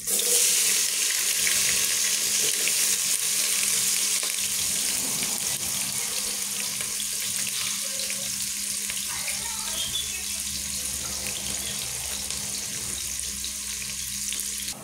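Sliced onions sizzling in hot oil in an aluminium pot. The sizzle starts suddenly as they hit the oil and eases off a little as they fry.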